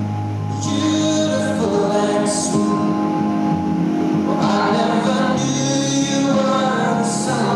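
Music with a singing voice over sustained accompaniment: a figure skater's short-program music.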